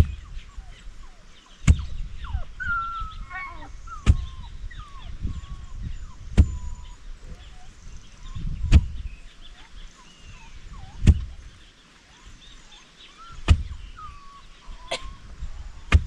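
Heavy hand-tool strikes, one about every two and a half seconds, each a dull thud with a sharp crack on top, with small birds chirping between them.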